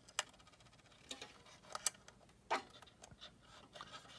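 Scattered small clicks and taps, a few seconds apart and irregular, from a screwdriver and a metal shield cover being handled while removing the shielding over a motherboard's M.2 slot. The sharpest tap comes about two and a half seconds in.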